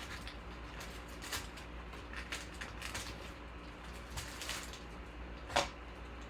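Trading cards being handled and sorted by hand: light rustles and clicks of cards sliding and tapping, with one sharper click about five and a half seconds in, over a steady low hum.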